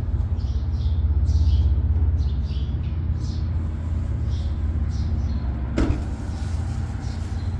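A diesel pickup engine idling with a steady low rumble. Short irregular hisses sound over it, and one sharp knock comes about six seconds in.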